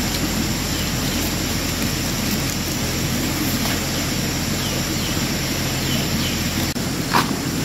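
An engine running steadily at an even speed, with a short sharp sound near the end.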